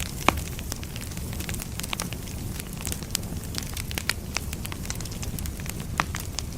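Burning firewood crackling and popping: irregular sharp snaps over a steady low rumble of the fire, with one loud pop about a third of a second in and another near the end.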